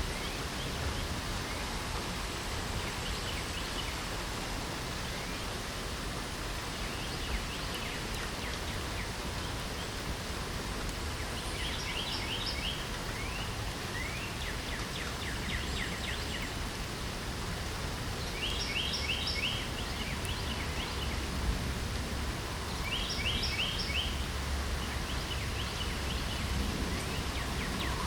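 Steady hiss of light rain with songbirds singing over it: quick trilled phrases of short high notes, repeated every few seconds.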